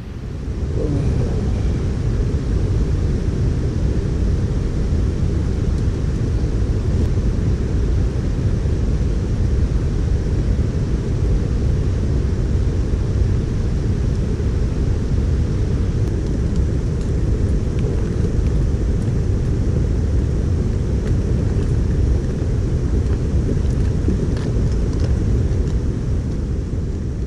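Loud steady low rumbling noise with no clear pitch. It starts abruptly and fades near the end.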